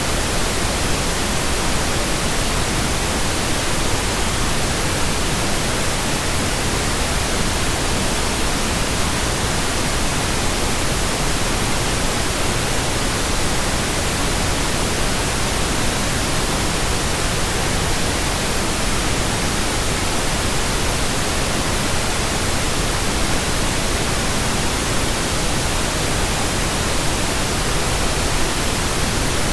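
Synthetic pink noise: a steady, even hiss that does not change.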